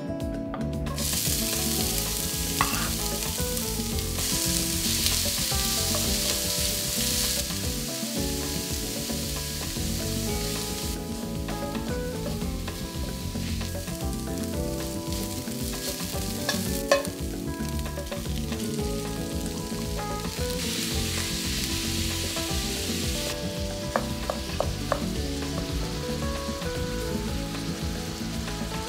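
Chopped onion and ground beef sizzling in oil in a steel frying pan, stirred and scraped with cooking chopsticks and a wooden spatula. The sizzle comes in about a second in and its loudness shifts several times, with a few sharp knocks of the utensil against the pan.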